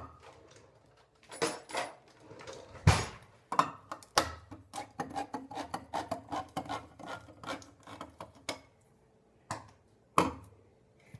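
A can of diced tomatoes being opened with a hand-cranked can opener: a sharp knock, then a few seconds of quick repeated clicks as the handle is turned, and another knock near the end.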